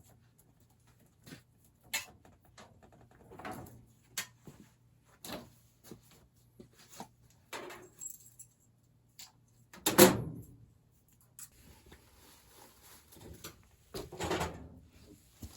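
Scattered clicks, clinks and knocks of hands handling tools and parts during a furnace installation. The loudest is a single thump about ten seconds in, and there is a second heavier knock near the end.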